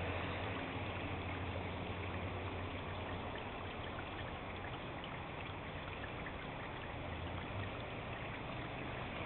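Steady rain falling, a continuous hiss with scattered faint ticks and a low steady hum beneath it.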